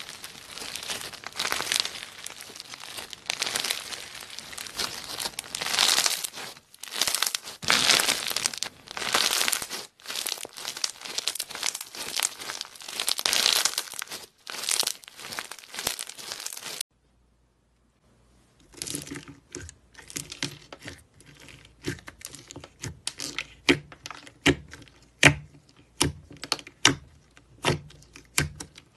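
Slime packed with small beads being squeezed and stretched by hand, a dense run of crackling and crunching. After a second of silence, a soft white slime is poked with a finger in its plastic tub, making a series of separate sharp clicking pops.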